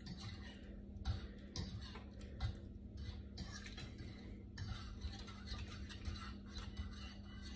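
A spoon stirring soup in a saucepan, with faint scrapes and light clinks against the pan over a steady low hum.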